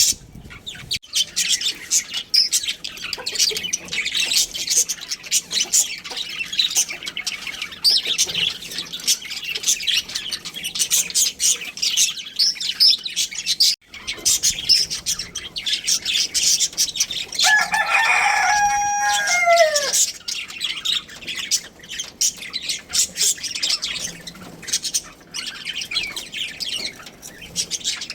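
Budgerigars chirping and chattering continuously in quick, high twitters. About eighteen seconds in, a rooster crows once for about two seconds, its call falling in pitch at the end.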